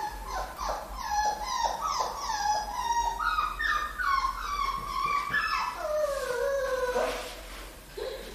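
A young puppy crying and yelping over and over, a quick run of short high cries ending in one longer falling cry, in distress as it is held and handled for mango worm (tumbu fly larva) removal.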